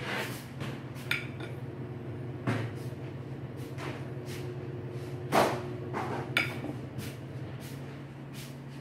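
Knife cutting a block of Velveeta cheese into cubes over a bowl: scattered, irregular clicks and knocks of the blade and cubes against the dish, the loudest about five seconds in. A low steady hum runs underneath.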